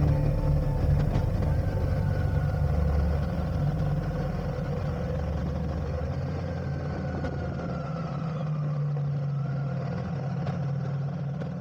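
Motorcycle engine running steadily under way, getting gradually quieter and fading out near the end.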